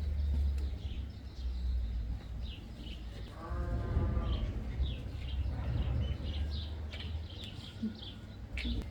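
A single wavering, bleat-like animal call about a second long, a few seconds in. It is set against repeated short high chirps and a low rumble.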